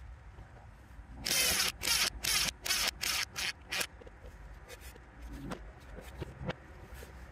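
Cordless power tool running a nut onto the damper fork mounting bolt in a quick series of about seven short trigger bursts, the first the longest. A couple of faint knocks follow near the end.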